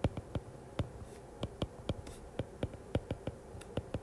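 Stylus tip tapping and clicking on an iPad's glass screen during handwriting: a quick, irregular series of sharp clicks, about three or four a second.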